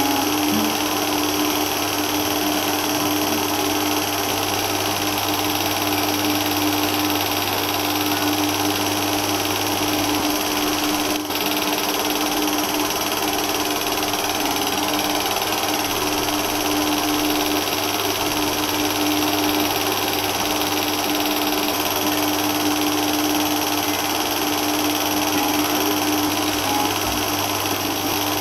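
Steady hiss with a constant low hum, unchanging throughout, with one brief tick about eleven seconds in.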